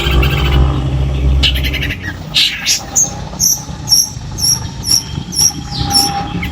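Long-tailed shrike (cendet) singing: a few harsh, scratchy notes, then a run of short, high, evenly repeated notes, about three a second. A low rumble underneath stops about two seconds in.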